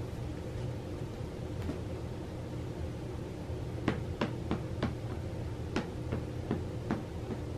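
A steady low hum runs throughout, and about halfway in a quick run of roughly ten light clicks or ticks begins, about two to three a second.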